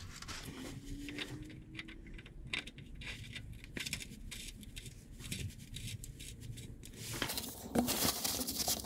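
Faint metal clicks and scrapes of a steel fill plug being threaded by hand into a Dana 44 differential housing. Near the end, a louder rustle and crinkle of a paper shop towel wiping around the plug.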